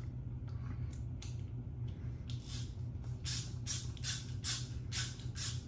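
Wera Zyclop ratchet being worked by hand, its ratcheting mechanism clicking in short quick bursts two or three times a second, louder after about two seconds.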